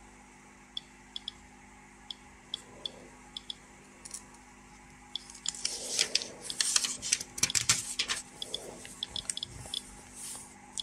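Old paper manual being handled, its pages rustling and turning for a few seconds about halfway through. Faint, sharp, irregular ticks come about once or twice a second.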